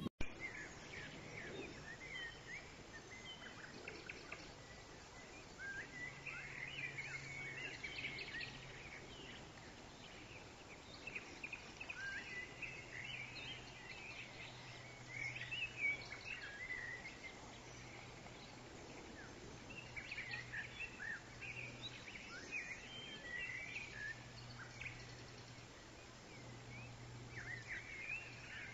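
Small birds chirping and singing in quick, short calls over faint outdoor background noise, with a faint low steady hum that comes and goes.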